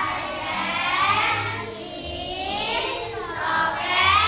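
A song with several children's voices singing together over a steady beat.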